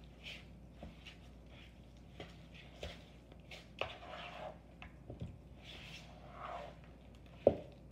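Wooden spoon stirring a thick, wet meatloaf mixture of ground meat, oatmeal and breadcrumbs in a mixing bowl: soft squelching and scraping with small irregular clicks, and one sharp knock near the end.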